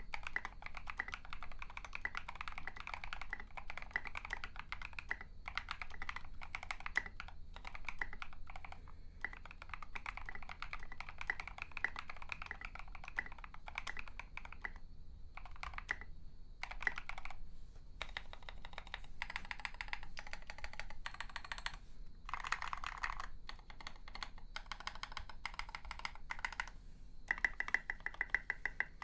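Typing on a KBD67 MKII polycarbonate mechanical keyboard fitted with lubed NovelKeys Cream linear switches and SA-profile keycaps. It is a steady stream of keystrokes broken by a few brief pauses.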